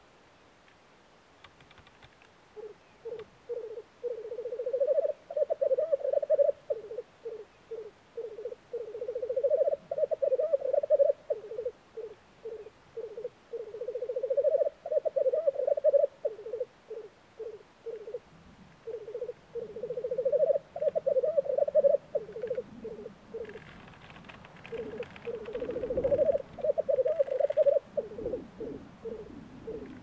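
Male black grouse bubbling (rookooing) in their spring lek display: a dovelike bubbling song in phrases of a few seconds, each swelling and then breaking into quick pulses, repeated over and over.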